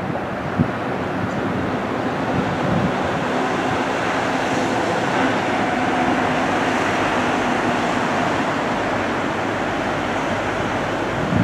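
Passenger train heard from a long way off, a steady rumble of wheels on rail, mixed with surf breaking on the rocks. Short low thumps of wind on the microphone come about half a second in and again near the end.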